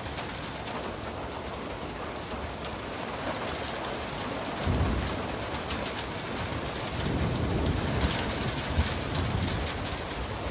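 Steady heavy rain falling, with thunder rumbling low about halfway through and again, longer, from about seven seconds in.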